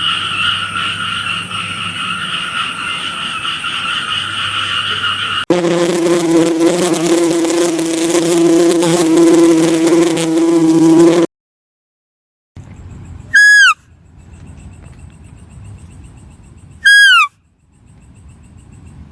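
A run of animal sound clips: a steady high-pitched insect-like buzz, then a lower steady buzz that cuts off suddenly, and after a short silence two short, loud calls that fall in pitch, a few seconds apart.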